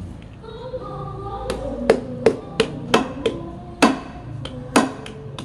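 A cleaver chopping roast pork on a chopping board: sharp, loud whacks at an uneven two to three a second, starting about a second and a half in, over background music.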